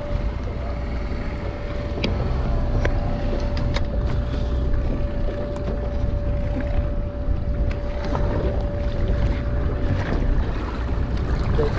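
Pot hauler winding a lobster pot's rope up from the seabed, a steady whine over a low rumble of wind and water, with a few light knocks.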